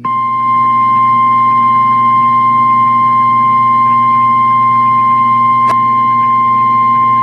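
Emergency alert warning tone: a single loud, steady tone near 1 kHz that begins abruptly, like the NOAA Weather Radio 1050 Hz warning alarm tone sounded before a warning message. A low hum runs under it, and a faint click comes a little past halfway.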